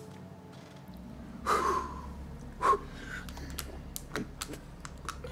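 Two short breathy vocal sounds from a person, like gasps or sighs, about a second and a half in and again about a second later, over a low steady hum with a few faint clicks.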